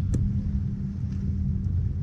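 Boat motor running steadily with a low drone, and one short click just after the start.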